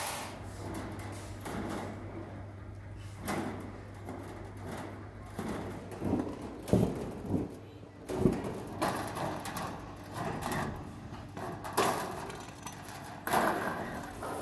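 Thin stainless steel sheets being handled and cut with long-handled hand shears: irregular scraping, flexing and clanks of the metal, with a few sharper, louder strikes in the second half.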